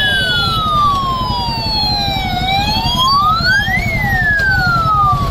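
Police siren wailing, twice rising quickly and falling slowly, with a faster chirping siren tone underneath. Beneath both runs the steady low rumble of a group of motorcycle engines riding in procession.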